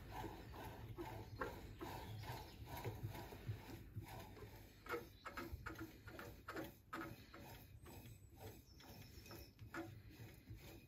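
Light, irregular wooden clicks and knocks, several a second, as a wooden stick taps and rubs against a bamboo-and-epoxy-resin vessel held in a lathe chuck and works into its opening, over a faint steady low hum.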